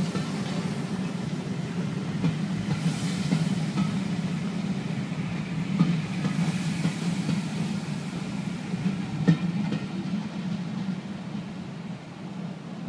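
Steam-hauled passenger coaches rolling past on the track: a steady low rumble with occasional sharp wheel knocks. The sound drops away near the end as the last coach goes by.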